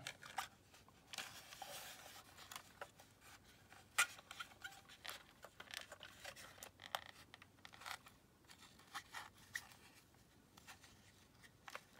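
Light scraping and scattered small clicks of a tool working in a plastic toy battery compartment, picking battery-acid corrosion off the contact spring.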